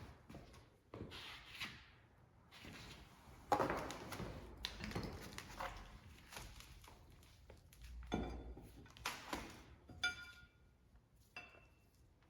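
Metal parts and tools of a Dana 70 axle knocking and clinking on a bench during disassembly, some strikes ringing briefly; the loudest knock comes about three and a half seconds in.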